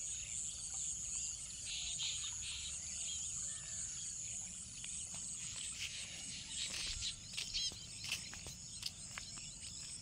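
Outdoor insect chorus, a steady high trilling like crickets, with scattered short bird chirps over it. From about two-thirds of the way through, a scatter of soft clicks joins in.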